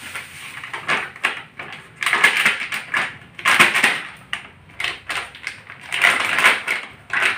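A plastic pouch crinkling and rustling in several short bursts as it is shaken and squeezed to empty powdered cream into a wok.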